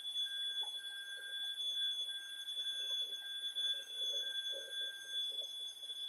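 Dyson V6 and Proscenic P8 Max cordless stick vacuum cleaners running together on carpet: a steady high-pitched motor whine with a second, lower tone that wavers on and off.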